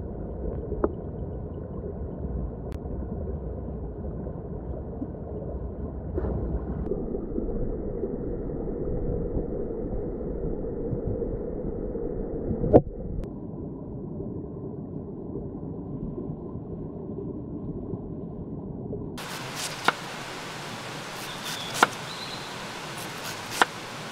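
Muffled rushing of stream water heard with the camera underwater. About 19 s in it cuts to a knife chopping cabbage on a wooden cutting board, three sharp knocks about two seconds apart.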